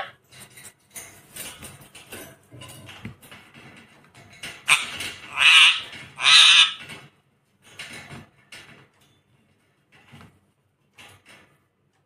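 Rose-ringed parakeet gnawing and knocking at a rubber toy: a run of small beak clicks and taps, with two loud, harsh squawks in quick succession about halfway through.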